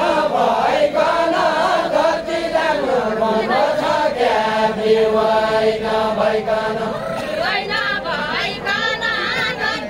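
A group of voices sings a Deuda folk song together as chanted, drawn-out lines, with long held notes through the middle and a wavering melody near the end.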